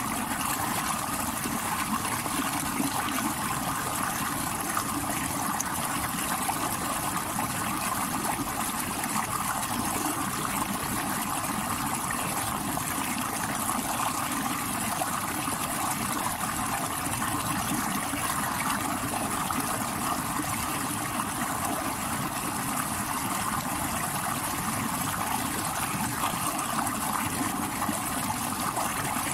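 Stream water rushing over rocks, a steady, unbroken rush.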